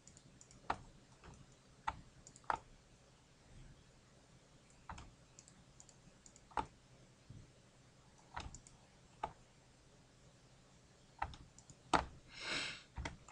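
Scattered clicks of a computer mouse and keyboard keys, about nine single clicks spread irregularly, with a brief hiss near the end.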